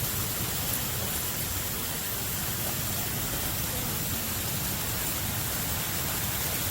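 Small waterfall: water falling in a steady, even rush.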